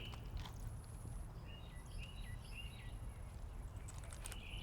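A bird giving a quick series of short chirps near the middle, over low outdoor rumble and a faint steady high-pitched tone.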